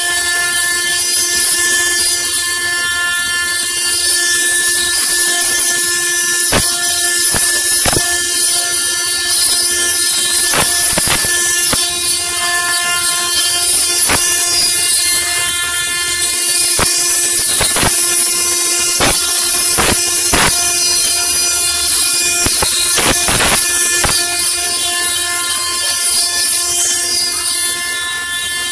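Stone CNC router spindle running steadily with a high whine as its bit carves a stone column under a water spray, over a bright cutting hiss and scattered sharp ticks.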